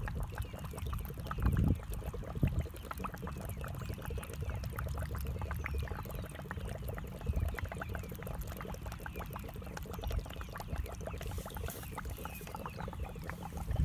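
Water trickling and bubbling as a large plastic vacuum chicken waterer fills from the bottom through a hose, with the water level rising inside. It is a steady run of fine splashes and bubbles over a low rumble.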